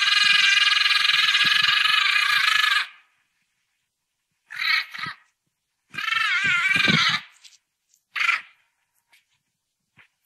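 An animal calling: one drawn-out call of about three seconds, then several shorter calls, one of them wavering in pitch.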